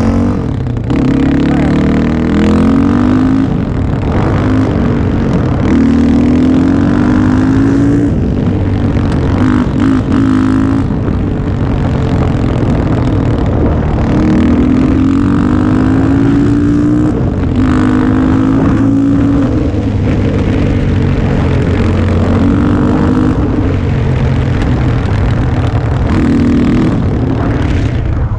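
Yamaha Raptor 660 ATV's single-cylinder four-stroke engine, breathing through aftermarket Yoshimura pipes. It accelerates hard, rising in pitch, drops back at each upshift, and pulls up again, over and over.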